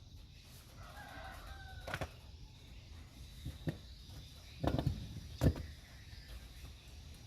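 A rooster crowing briefly in the background, one short call with a slight fall in pitch. It is followed by a few sharp metallic knocks, the loudest about five and a half seconds in.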